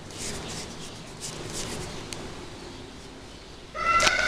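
A cat's long, drawn-out meow starts near the end, after a few quiet seconds with faint light handling sounds.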